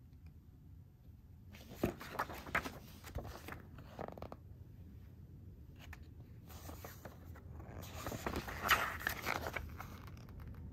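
Pages of a glossy paper booklet being handled and turned: two spells of crisp rustling and crinkling, the second, about eight seconds in, the louder.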